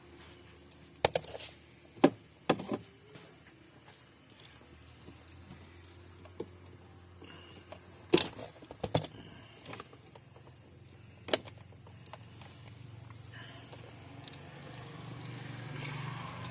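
Scattered sharp clicks and knocks of hand work on car wiring, about six in all, over a faint low hum that grows louder near the end.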